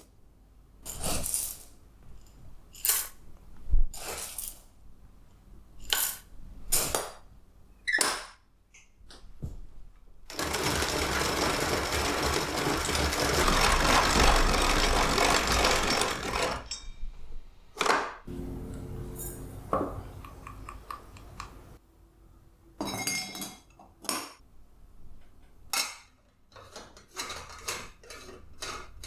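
Metal and glass parts of an antique H. Eicke coffee maker being handled: a run of sharp clinks and clicks, then about ten seconds in a dense, steady rattling noise lasting some six seconds, then more scattered knocks and clinks.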